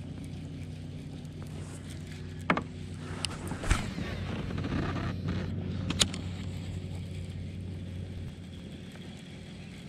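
Steady low engine hum that eases off near the end, with a few sharp clicks and knocks in the middle.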